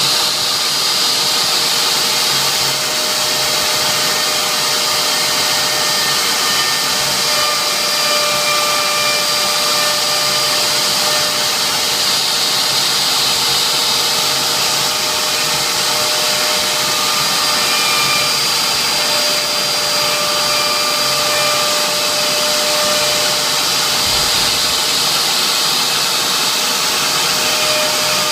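CNC router spindle running steadily with a constant whine while engraving a wooden signature board, with higher tones coming and going as it cuts.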